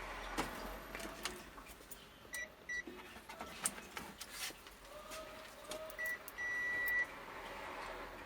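Digital multimeter beeping in continuity mode as its probes are touched to points on a TV circuit board: several short beeps and one longer beep about six seconds in, with light clicks of the probe tips. The readings check whether the short remains across the pads of a desoldered MOSFET.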